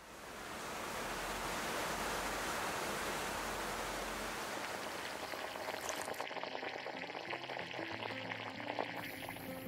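Steady rain falling, an even hiss that fades in at the start. About six seconds in, the high part of the hiss cuts off, leaving a softer, duller noise with faint small clicks.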